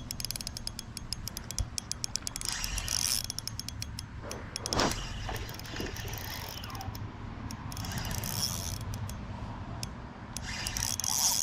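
Fishing reel being cranked, its gears and handle giving a rapid clicking rattle in spells, as a hooked spotted bass is reeled in.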